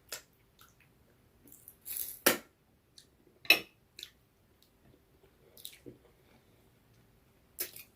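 Wet chewing and mouth smacks from someone eating noodles and chicken: short, sharp, irregular clicks and slurps, about eight of them, the loudest about three and a half seconds in.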